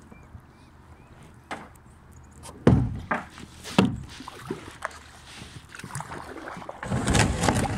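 Kayak paddling: the paddle dipping and splashing in the water, with sharp knocks on the plastic kayak hull, two of them loud about a third and halfway in, and a longer rush of splashing and thumping near the end.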